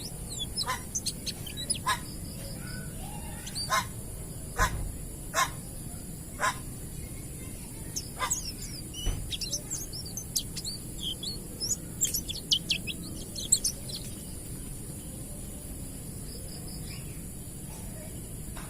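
White-eye (pleci) singing in the wild ngalas style: rapid high chirps and short, sharp calls in quick clusters that stop about fourteen seconds in, over a steady high hiss.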